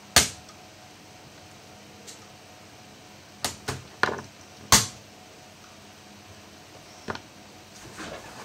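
Hard clicks and knocks of laptop parts and tools being handled during disassembly: about six sharp taps, the loudest one right at the start and another a little before the middle.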